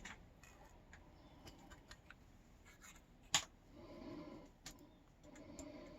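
Faint small clicks and taps from handling the gutted padlock's pins and parts, with one sharper click a little past halfway.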